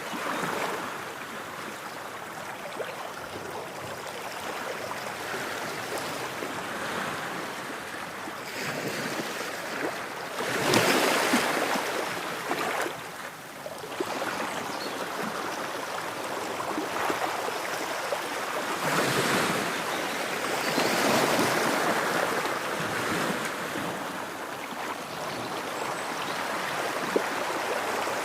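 Ocean waves washing onto the shore: a continuous hiss of surf that swells into two louder breaks, one a little over a third of the way in and a longer one about two-thirds through.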